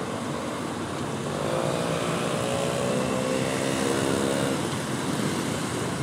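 A motor hum, steady in pitch, comes in about a second and a half in and stops just before the five-second mark, over a constant rushing noise.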